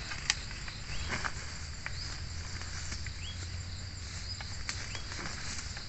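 Forest ambience: insects droning steadily, with a few short rising chirps and scattered sharp clicks and rustles.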